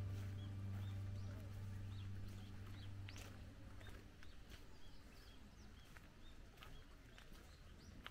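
Background music fading out over the first few seconds, leaving faint birdsong: short high chirps repeated every half second or so.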